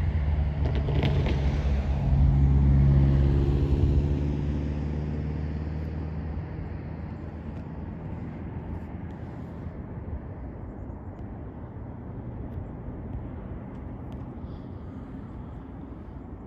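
A train passing by: a loud low engine hum with a steady drone that peaks a few seconds in, then fades gradually as it moves away.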